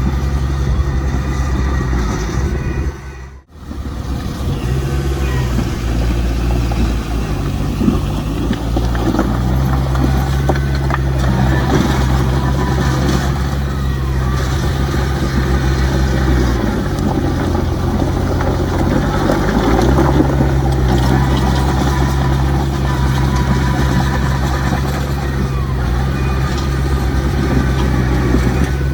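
Heavy diesel earth-moving machinery running, its engine pitch dipping and rising again as the load changes. The sound drops out briefly about three and a half seconds in.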